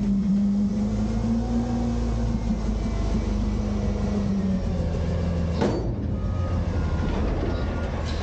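Autocar/Heil front-loader garbage truck lowering an emptied dumpster on its hydraulic arms: the engine is revved to drive the hydraulic pump, giving a steady hum over a low rumble that drops away a little past halfway, followed by one sharp metal clank.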